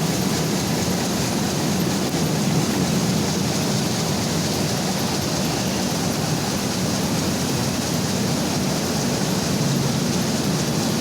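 Mini rice mill machine running steadily: a loud, even mechanical rumble.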